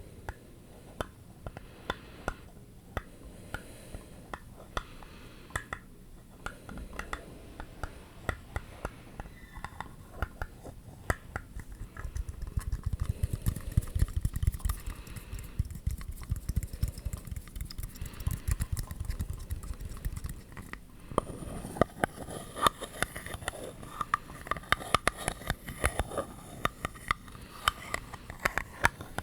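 Close-miked fingernail tapping and scratching on objects: scattered sharp taps at first, a denser scratching stretch with a low rumble in the middle, then quicker, brighter tapping in the last third.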